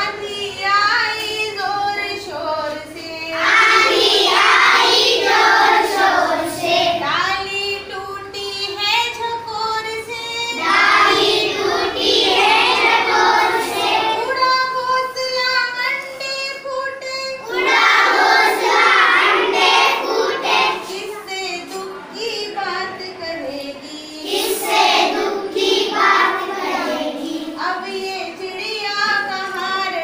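A group of schoolchildren singing a Hindi children's poem together in rhythm, in chorus phrases with short breaks between lines.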